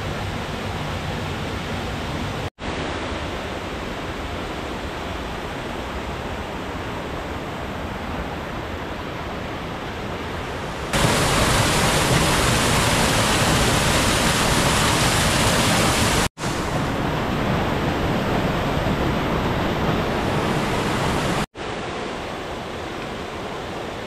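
Mountain stream rushing down rocky cascades into pools: a steady roar of water, louder for about five seconds in the middle. It cuts out for an instant three times.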